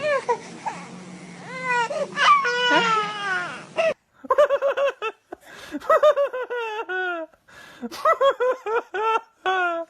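A puppy whining and yelping in high-pitched cries: a few drawn-out, wavering whines, then, after a sudden break about four seconds in, a quick run of short yelping whimpers.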